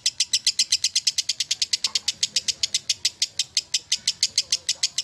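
Fischer's lovebird chattering in a long, unbroken trill of rapid, high chirps, about eleven a second: the sustained 'ngekek' song that lovebird keepers prize.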